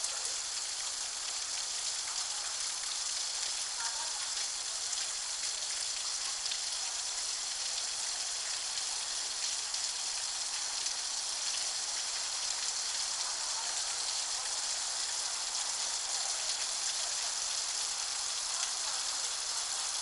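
Rainwater pouring off an overflowing gutter and splashing onto a metal electrical cabinet and the pavement, making a steady splashing hiss. The uploader thinks the gutter above the cabinet is blocked.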